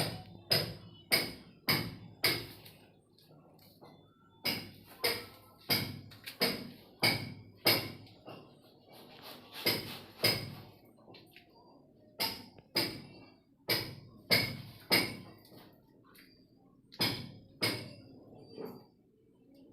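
Repeated hammer blows on something hard, in runs of four to seven strikes about two a second with short pauses between; each strike rings briefly with a metallic tone.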